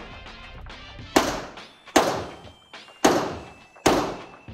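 Pistol shots on an indoor range: four single shots about a second apart, each ringing off the walls with a short echo.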